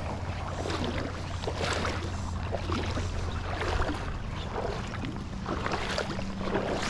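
Creek water running: a steady rushing wash with irregular swells.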